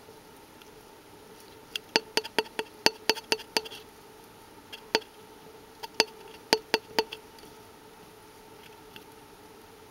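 Sharp taps on a cardboard tube, heard from inside it and ringing hollow: a quick run of about nine taps, then two, then five. Under them the tube hums faintly and steadily.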